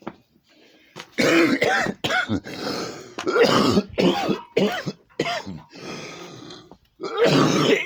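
A man in a hard coughing fit, coughing up a lung: a run of harsh, throaty coughs and throat clearing, starting about a second in and going on with short pauses to the end.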